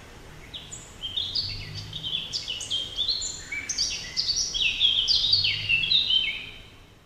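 Many birds chirping over a faint low hum, the short notes sliding quickly downward and overlapping one another. It fades out near the end.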